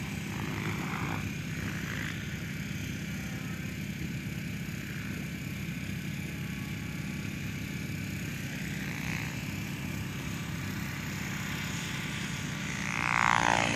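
Radio-controlled helicopter in flight, its rotor and motor giving a steady hum. Near the end a louder sound falls in pitch for about a second.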